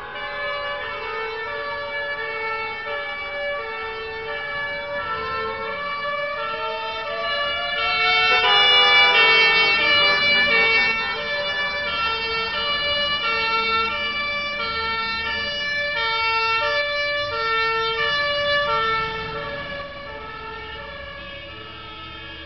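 Fire engine's two-tone siren, switching back and forth between a high and a low note. It grows louder to a peak about eight to eleven seconds in, then fades near the end.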